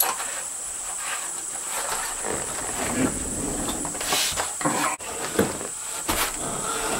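Insects singing in a steady, high-pitched continuous whine, with scattered close rustles and knocks throughout.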